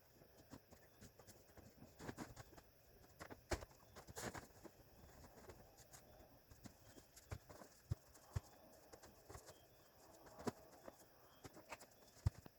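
Faint, irregular knocks and clicks, roughly one or two a second, a few of them sharper, about four seconds in and near the end.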